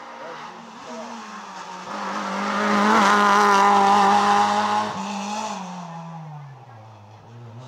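Rally car engine at high revs approaching and passing close by, loudest about three to five seconds in, its pitch dropping as it draws away.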